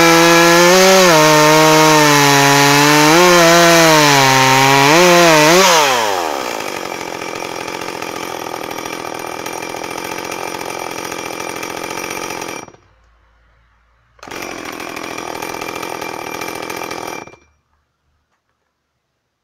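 Jonsered 2141 two-stroke chainsaw cutting through a log at full throttle, its engine pitch dipping and recovering as the chain bites into the wood. About six seconds in the revs fall away and the saw idles; the sound drops out briefly, returns, then stops a couple of seconds before the end.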